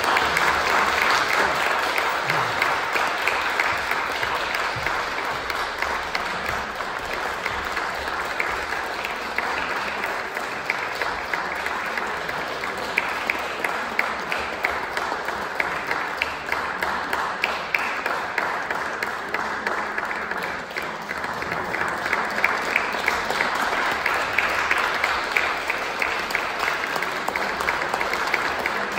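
Audience applauding steadily, dense clapping from many hands.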